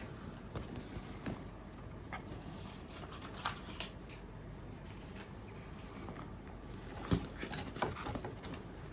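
Handling of a fabric camera bag: soft rustling with a few scattered light clicks, the sharpest about three and a half seconds in and again about seven seconds in.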